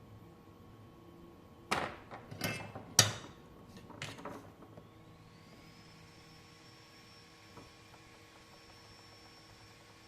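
A few sharp knocks and clatters of hard objects being handled, the loudest about three seconds in, followed by a faint, steady high-pitched whine that rises in and holds.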